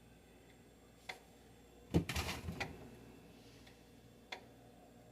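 Sharp single clicks from a fridge-freezer, coming a second or few apart: the unexplained ticking the owner traces to inside the freezer. About two seconds in, a louder clattering knock of something being handled stands out over them.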